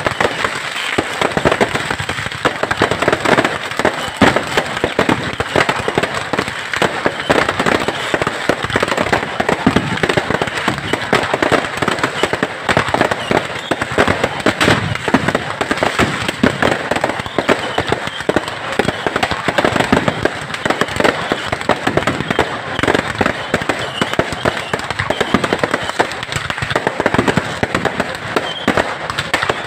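Many fireworks and firecrackers going off at once: a dense, continuous crackle of rapid overlapping bangs with no let-up.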